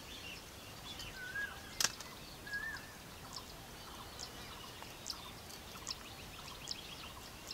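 Quiet open-field ambience with faint bird calls: two short whistled notes in the first three seconds and scattered brief high chirps throughout. A single sharp click a little under two seconds in.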